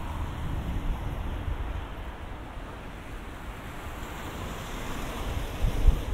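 Wind buffeting the microphone over a steady rushing hiss that swells towards the end.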